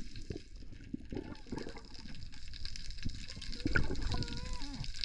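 Water sloshing and rushing around the camera with a low rumble and irregular splashy strokes; a faint wavering tone comes in near the end.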